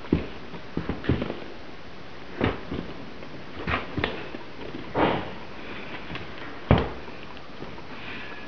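Leather boots being handled and set down on a tabletop: irregular soft thumps and brushing, with a sharper knock about two-thirds of the way through.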